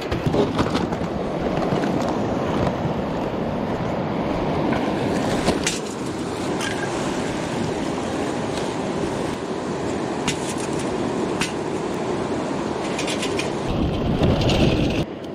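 Mountain river rushing steadily, with a few brief clicks or knocks here and there.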